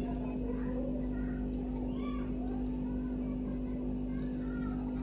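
A steady low mechanical hum with one strong constant tone, with faint distant voices over it.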